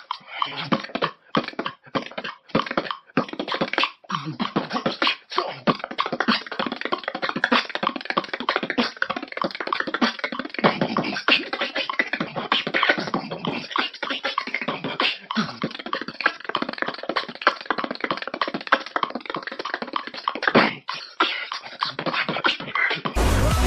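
A man beatboxing very fast: a dense, unbroken stream of rapid percussive mouth sounds, clicks and hisses. About a second before the end it cuts to electronic dance music.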